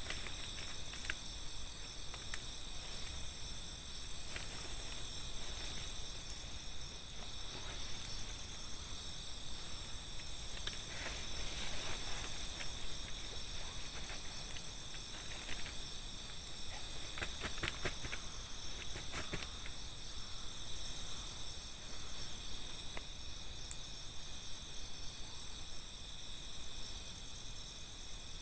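Night insects in the forest keep up a steady chorus in several high-pitched bands, with scattered light clicks and rustles of something being handled close by.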